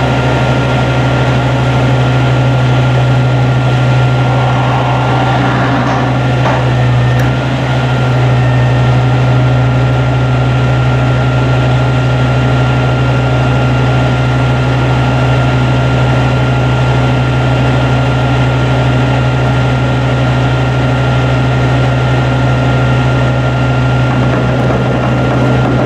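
Sterling LT7500 hydro-excavator truck running steadily, its engine and machinery making a deep, even drone with a thin steady whine above it.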